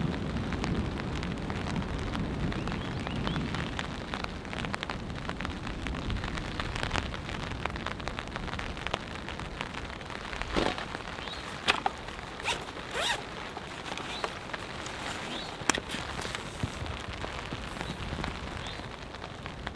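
Steady rain pattering on a tarp overhead. Between about ten and sixteen seconds in come a handful of short rasps and clicks, louder than the rain, as gear is handled close by.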